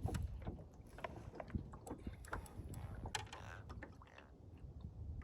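Scattered light clicks and knocks from handling a small catfish and fishing gear in a small fishing boat, over a steady low rumble.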